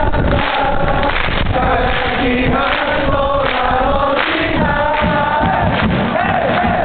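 Crowd of Vegalta Sendai football supporters singing a chant together, many voices in unison, loud and close.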